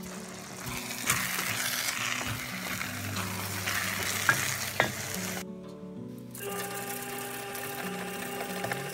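Rice sizzling in a hot pot as it is stirred for risotto, with two sharp clinks of the spoon against the pot about four and a half seconds in. The sizzle drops away about five and a half seconds in.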